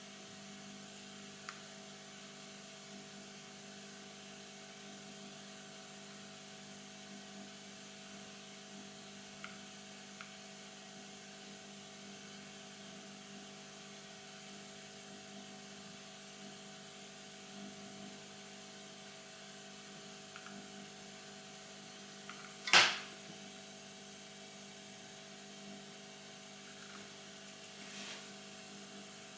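Steady hum of a small motor or fan with a thin high whine over it, unchanging throughout; one sharp click about three-quarters of the way through, and a fainter one near the end.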